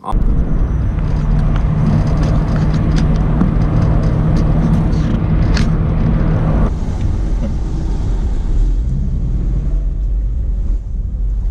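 A car running, with a steady loud rumble of engine and road noise and a few sharp clicks. The engine tone drops and changes about two-thirds of the way through.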